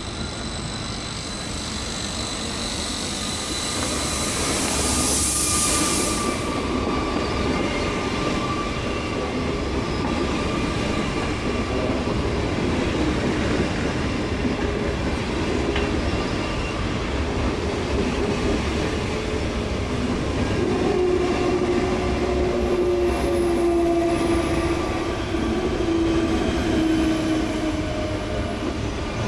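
SBB FV-Dosto (RABe 502) double-deck electric train rolling slowly along the platform, with a short hiss about five seconds in. Thin wheel and brake squeals ride over the rolling noise, and near the end they fall in pitch as the train slows.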